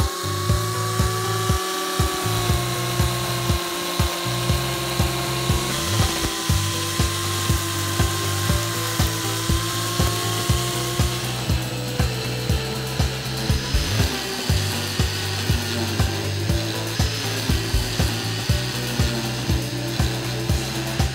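Background music with a steady beat of about two strokes a second, over the steady motor whine of an electric angle grinder, fitted as a grass cutter, running through grass in the first half.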